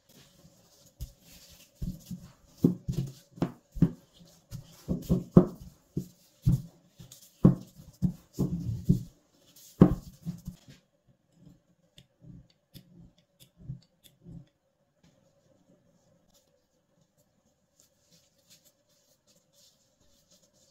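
Bread dough being flattened by hand and rolled out with a wooden rolling pin on a silicone baking mat: a run of soft thumps and knocks for the first ten seconds or so, thinning to a few light taps, then near quiet.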